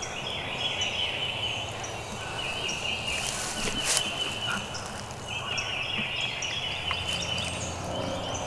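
Spring hardwood woods ambience: a raspy high-pitched buzz that comes in stretches of a second or two, small birds chirping, and one sharp click about four seconds in.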